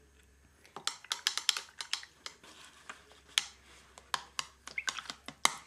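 Quick, irregular light clicks and clatter of small hard items being handled, such as face-painting supplies being picked up and set down, starting about a second in.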